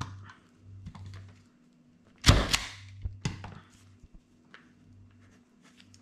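Desk-work knocks: a self-inking rubber stamp being handled and set down on a desk, with one loud thump a little over two seconds in, a second knock about a second later, then small taps and clicks of a pen and papers.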